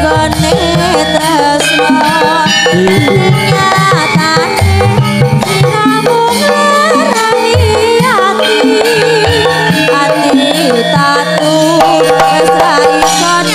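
Javanese gamelan music with a kendang hand drum beating a busy rhythm under a female sinden singing with a wavering, ornamented voice.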